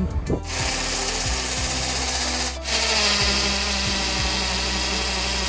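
Electric drill running under load while drilling a hole in a wall for a doorbell mount, in two runs with a brief stop about halfway through.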